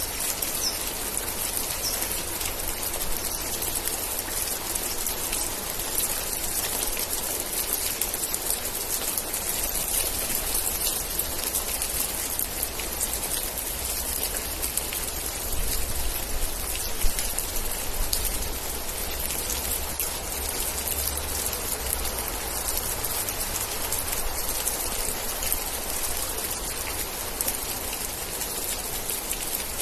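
Steady rain, a dense even hiss with a fine patter of drops landing on surfaces. A low rumble underneath swells a little in the middle, and there is one sharper drop hit about 17 seconds in.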